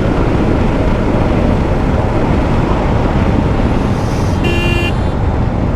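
Bajaj Dominar 400's single-cylinder engine held flat out at its top speed of about 163 km/h on the rev limiter, buried in a steady rush of wind noise on the microphone. A short beep sounds about four and a half seconds in.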